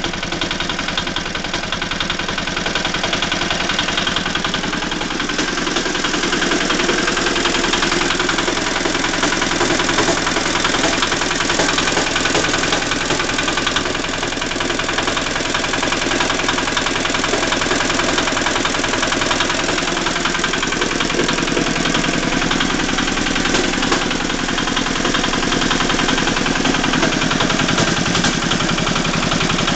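Walk-behind tractor engine running steadily with a knock in it, slightly louder after the first few seconds.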